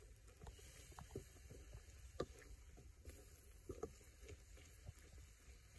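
Faint, irregular taps and crackles from stir-frying over a wood fire: a wooden spatula stirring vegetables and meat in a metal wok, with one sharper tick about two seconds in.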